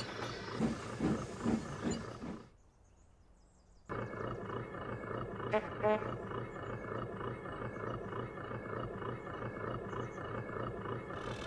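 Railway locomotive sound effects: a few heavy pulses, a sudden cut to near silence for about a second and a half, then steady engine running with a short pitched call, like a whistle or horn, about six seconds in.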